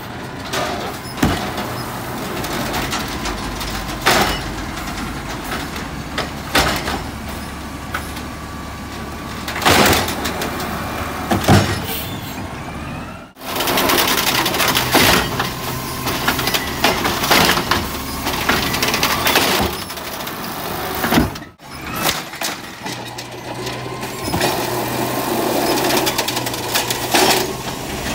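Natural-gas automated side-loader garbage truck running while its hydraulic arm grabs a yard-waste cart, lifts it and tips it into the hopper, with repeated sharp knocks and bangs of the plastic cart against the arm and hopper. The sound breaks off briefly twice.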